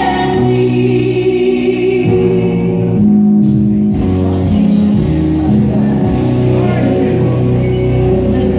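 Music with a singing voice, played loudly, with long held notes.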